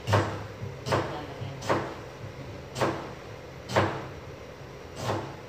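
Kitchen knife slicing a tomato on a cutting board: six knocks of the blade striking the board, about one a second, over a low steady hum.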